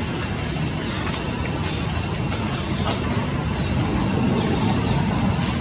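Steady outdoor background rumble and hiss, with a thin steady high tone and a few faint clicks.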